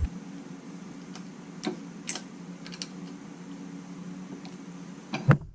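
A few light, irregular clicks and taps of metal vise parts being handled, over a steady low hum, with a louder knock near the end.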